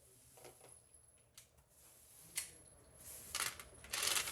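Faint clicks and light knocks of handling, with a few louder short rustling bursts of noise toward the end.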